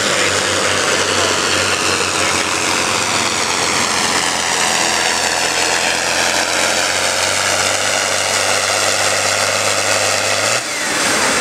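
John Deere pulling tractor's diesel engine at full throttle under load, dragging the sled, its pitch sinking slowly as the engine lugs down. Near the end the engine is abruptly backed off as the pull ends.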